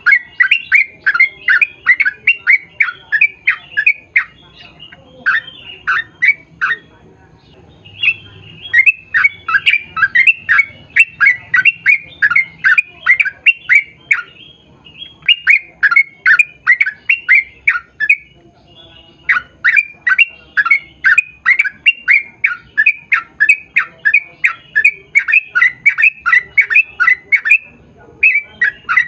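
Yellow-vented bulbul (trucukan) singing in long rapid runs of short chattering notes, about four a second, with a few short breaks between the runs.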